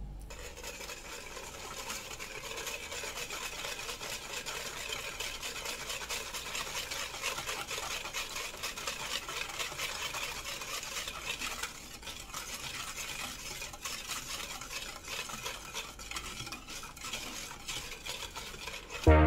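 A metal wire whisk beats milk and pudding mix in a plastic bowl, a fast, steady swishing and clinking with a brief pause about two-thirds of the way through.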